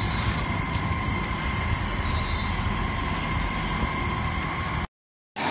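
Fire engine's engine and pump running: a loud steady rumble with a faint steady whine over it, cutting off suddenly near the end.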